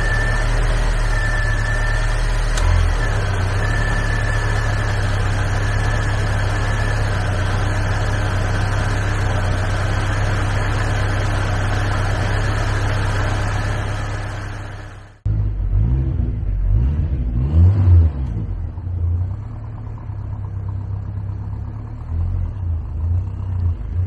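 The 1987 Ford Thunderbird Turbo Coupe's 2.3-litre turbocharged four-cylinder engine running steadily under the open hood, with a steady high whine over it; it fades out about 14 seconds in. Then the car is heard from outside, its engine rumbling unevenly as it drives away.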